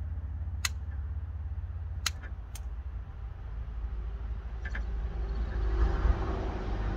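A few sharp clicks and light scuffling from hand work on the wiring inside a van door, over a steady low rumble.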